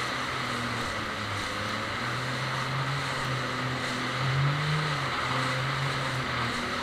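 Jet ski engine running at speed over a steady rushing hiss of water spray. The engine note rises a little about four seconds in, then settles back.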